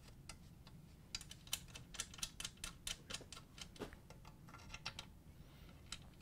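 Faint small metal clicks as large Phillips screws are turned in by gloved fingers into a KitchenAid stand mixer's base, with a quick run of clicks between about one and three and a half seconds in.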